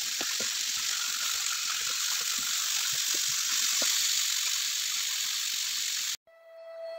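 Chicken pieces sizzling in hot oil in a nonstick frying pan: a steady hiss with small scattered crackles. It cuts off suddenly about six seconds in.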